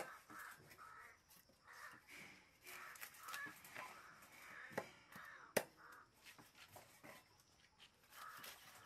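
Faint, repeated cawing of crows, with a few sharp knocks of a cleaver striking fish on a wooden chopping block, the loudest a little past the middle.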